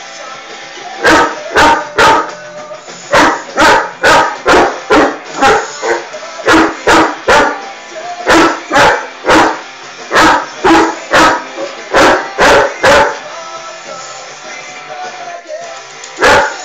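Irish wolfhound barking loudly over and over, mostly in quick runs of two or three barks about half a second apart. After a pause of a few seconds there is one last bark near the end, with music playing underneath.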